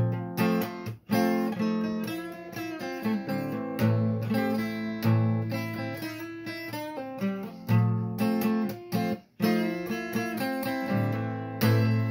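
Capoed acoustic guitar being played, ringing chords with a strong bass, with two brief stops in the playing.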